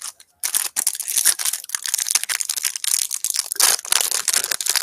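Plastic wrapper of a trading card pack crinkling and tearing as the pack is opened, a dense crackle that starts about half a second in.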